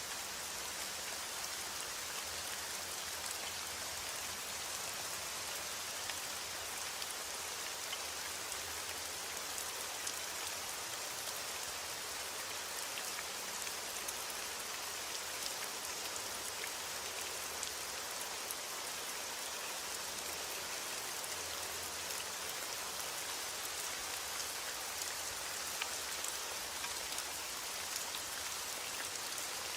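Steady heavy rainfall: an even hiss of rain with many small drops pattering on a surface. It keeps a constant level throughout, with no thunder.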